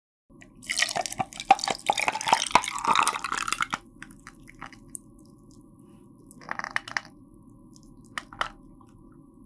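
Water poured from a plastic bottle into a glass mug, splashing and clinking for about three seconds, then stopping. Later come two brief sipping sounds from the mug.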